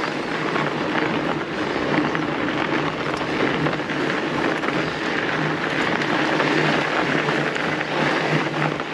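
Fat bike rolling along a packed-snow trail: a steady crackling, crunching noise of the wide tyres on snow, with rumble from the bike itself.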